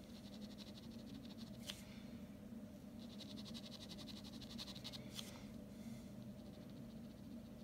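Ballpoint pen scratching on drawing paper in quick, short hatching strokes, faint, with a busier run of strokes from about three to five seconds in and a couple of light ticks. A low steady hum lies underneath.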